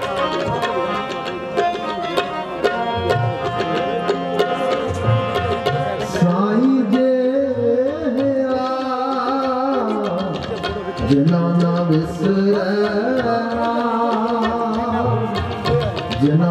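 Sikh shabad kirtan: two harmoniums and a tabla play an instrumental passage. A male voice comes in singing about six seconds in, with a wavering, gliding line over the harmonium and tabla.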